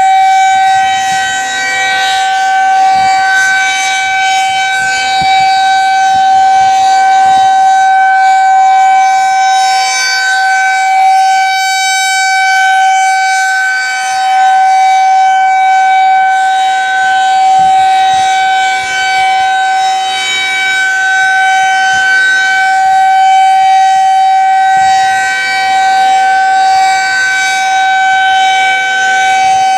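Federal Signal 2001-SRNB rotating electromechanical outdoor warning siren sounding a steady alert during a monthly test. It holds one steady pitch, and its loudness slowly swells and fades as the rotating horn sweeps past.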